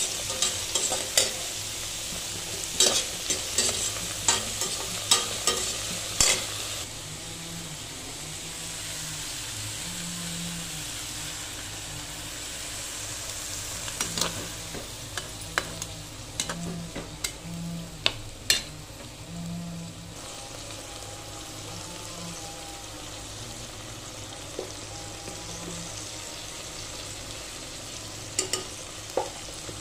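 Sliced brinjal, onion and tomato frying in oil with a steady sizzle. A spatula scrapes and clacks against the pan in bursts: through the first six seconds, again in the middle of the stretch, and briefly near the end.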